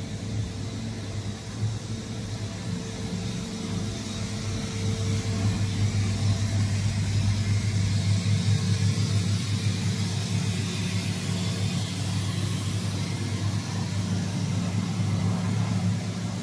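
Gnutti G359 multi-station machining center running: a steady machine hum with a constant low drone and a hiss over it, growing a little louder partway through.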